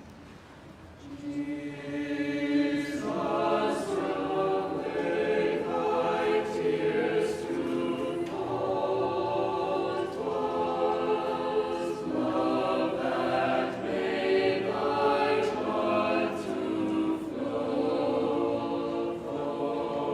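Choir singing a sacred chant in several voices, starting about a second in after a short pause.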